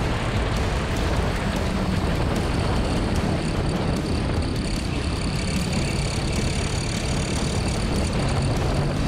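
Motorcycle engine running at speed on a race track, heard from an onboard camera under heavy wind rumble on the microphone, with a faint steady high whine.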